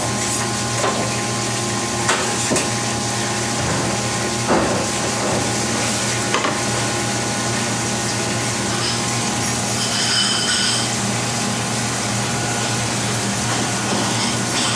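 Steady hiss and hum of a commercial kitchen, with a handful of short, sharp knocks in the first half as a long knife works through a big-eye tuna's bones to quarter the fish.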